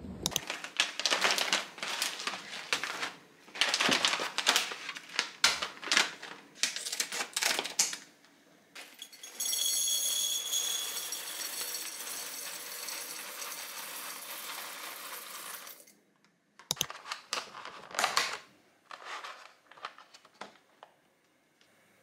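Coffee beans poured from a bag into a glass jar, a steady dense rattle lasting several seconds midway. Before it comes a run of irregular clicking and clattering, with a few more clicks near the end.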